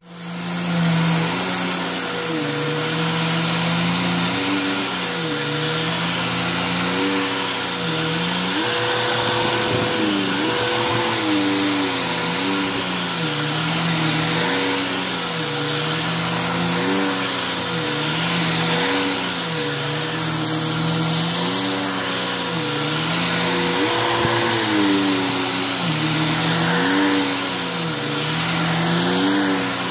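Bissell upright vacuum cleaner switching on and running over carpet as it picks up dirt and debris. Its low hum dips in pitch and recovers every couple of seconds.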